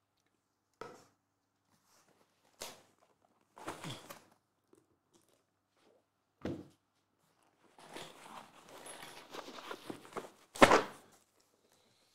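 Handling noises of cardboard boxes on a table mat: scattered knocks, a couple of seconds of rubbing and sliding about two thirds through, then a louder thunk near the end as a sealed trading-card box is set down.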